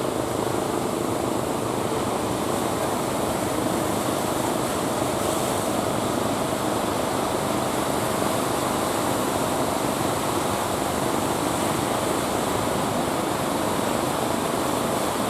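Steady roar of large ocean waves breaking and surging, an even rushing noise that holds at one level throughout.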